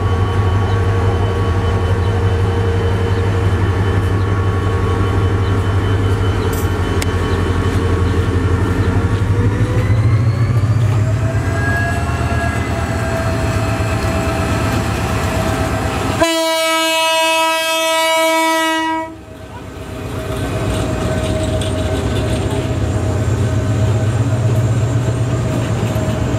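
Diesel locomotive engine running, rising in pitch about ten seconds in as it throttles up. About sixteen seconds in, one long multi-tone horn blast lasting about three seconds, after which the engine runs on.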